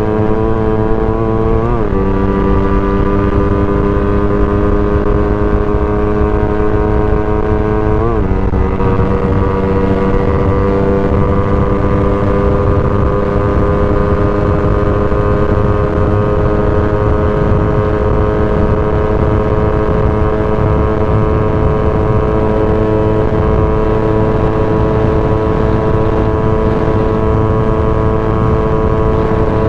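Motorcycle engine running under way. Its pitch drops sharply twice, about two and eight seconds in, as on upshifts, then climbs slowly and steadily as the bike keeps accelerating. Wind and road rumble run underneath.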